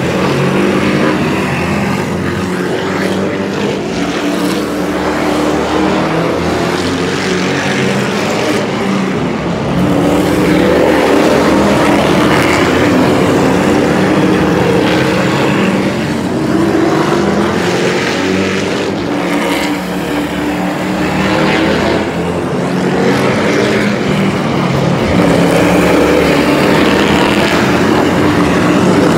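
Super truck race trucks' engines running at racing speed around a short oval, several at once. The pitch rises and falls and the sound swells as trucks pass close, loudest about a third of the way in and again near the end.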